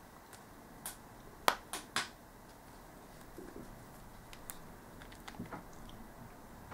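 A few faint sharp clicks and taps from handling a small plastic tube of RTV silicone sealant, squeezing it and unscrewing its plastic nozzle, mostly about one to two seconds in.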